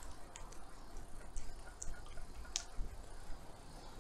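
Riding noise on a bicycle: a steady low rumble of wind and road with a handful of light, sharp ticks scattered through it, the sharpest about two and a half seconds in.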